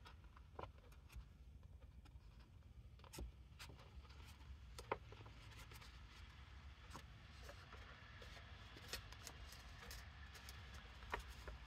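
Faint handling of paper with scattered light clicks and ticks as metal paper clips are slipped onto folded paper, one sharper click about five seconds in, over a steady low room hum.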